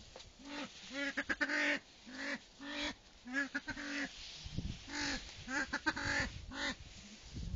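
Male silver pheasant calling over and over, short nasal croaking notes about two a second, the calls of a bird bold enough to face up to a person.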